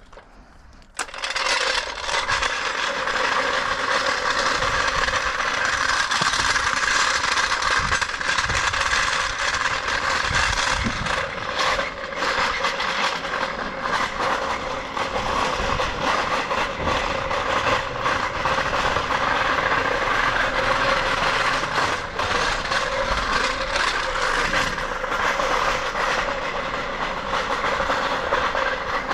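A machine switches on suddenly about a second in and runs loud and steady, a continuous mechanical noise without a clear pitch.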